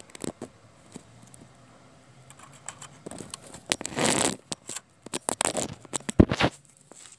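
Handling noise from a camera moved close over concrete: irregular rustles and clicks, a longer scraping rustle about four seconds in, and a cluster of sharp knocks about six seconds in, the loudest of them.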